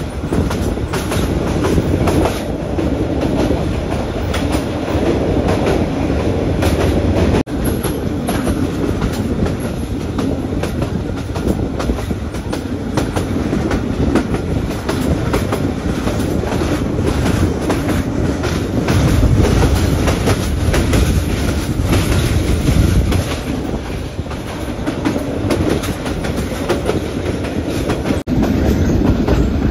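SE9 passenger train running: a steady low rumble with the wheels clattering over the rail joints, broken by two sudden momentary dropouts, about seven seconds in and near the end.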